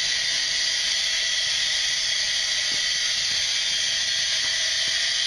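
Helium hissing steadily through a fill hose into the neck of a high-altitude balloon as it is inflated.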